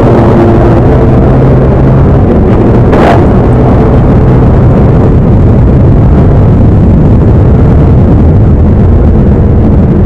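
Yamaha Aerox 155 scooter's single-cylinder engine running steadily and loud at cruising speed, its drone mixed with a steady rush of road noise. A brief sharp hiss cuts in about three seconds in.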